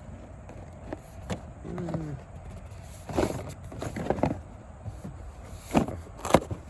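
Cardboard box of coffee pods being handled and pried open: scattered scrapes, clicks and knocks, the loudest two near the end.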